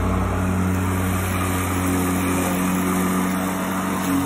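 Erbauer ELM18-Li 36V cordless lawnmower's brushless electric motor running with a steady hum while the mower is pushed along, its blade cutting the grass.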